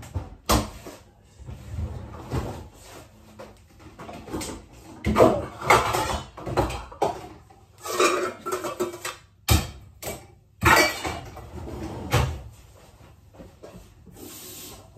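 Kitchen clatter: dishes and pans being handled and set down, with a string of irregular sharp knocks.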